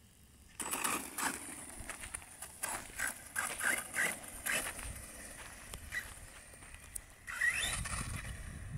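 Brushless electric RC truggy (HSP Wolverine with a stock 3300 kV motor on a 120 A Hobbywing ESC) taking off about half a second in and driving in throttle bursts, its motor giving short rising whines over tyre noise on gravel and pavement. A longer, higher rising whine comes near the end as it speeds away.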